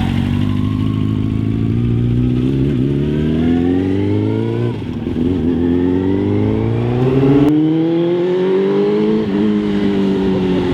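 Suzuki GSX-R750 SRAD sportbike's inline-four accelerating under load: the revs climb, drop at a gear change about halfway through, climb again, then ease off near the end.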